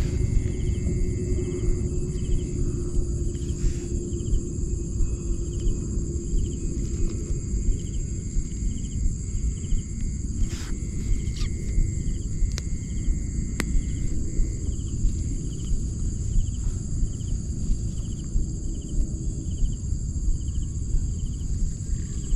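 Insects, crickets among them, singing in a steady chorus of high, continuous whines, with a chirp repeating about twice a second. Beneath them runs a low, rumbling noise.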